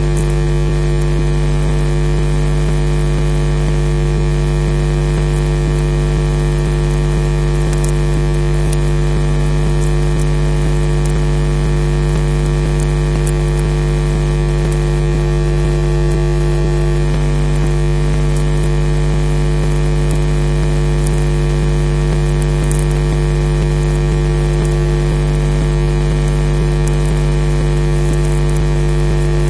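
Loud, steady electrical hum with hiss, made of several constant tones, typical of mains interference on a webcam's audio feed, with a few faint ticks. No bird calls are heard.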